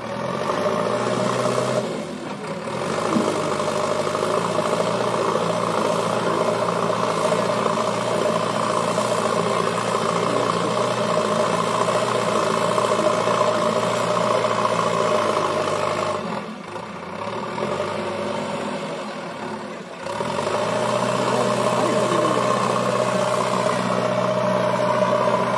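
JCB 3DX backhoe loader's diesel engine running under working load while it digs and lifts soil. It eases off briefly about two seconds in and drops back for a few seconds past the middle before picking up again.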